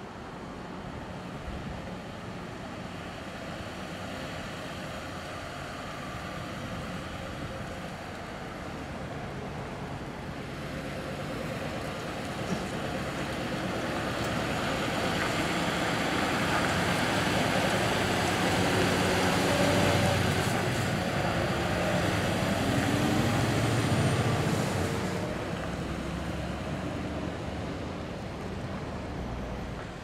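Diesel engine and tyres of a heavy dump truck with a trailer, loaded with crushed concrete, driving past. The sound builds from about twelve seconds in, is loudest for several seconds with the engine note shifting up and down, then fades away.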